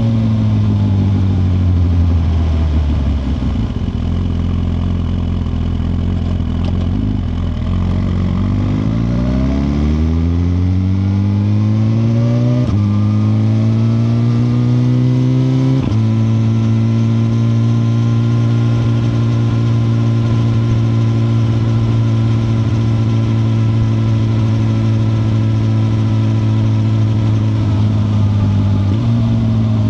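2021 Suzuki GSX-R1000R's inline-four engine on the move: its note falls as the bike slows for the first few seconds, then climbs through the gears with two upshifts a few seconds apart, holds a steady cruising note for a long stretch, and drops again near the end as the throttle closes.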